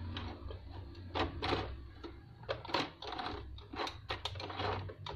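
Portable sewing machine's needle and rotary hook mechanism clicking irregularly as it is cycled to check how the needle meets the hook, over a low steady hum.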